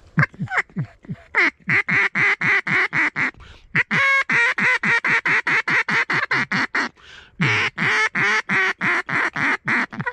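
Mallard duck call blown in a long, fast string of loud hen quacks, the first few falling in pitch, broken by two short pauses.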